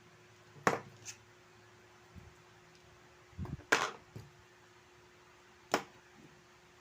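Handling noise from working on a G-Shock watch: four sharp clicks, two close together near the start, one in the middle and one near the end, with a few soft knocks in between.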